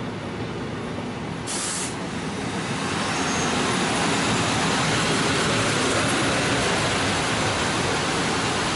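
PKP Intercity passenger coaches rolling past along the platform: a steady rumble of wheels on rail that grows louder about three seconds in. There is a brief hiss of air about a second and a half in.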